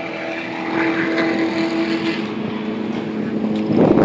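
A car engine running, with a steady hum that grows louder toward the end.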